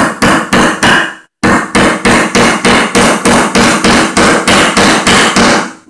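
Hammer driving a galvanized nail into a wooden board, steady blows at about three a second with a brief pause about a second in.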